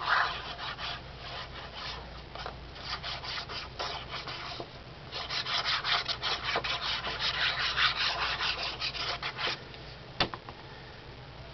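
Paper being rubbed with quick back-and-forth strokes, a dense run of scratchy strokes that is loudest in the middle, then a single sharp tap near the end.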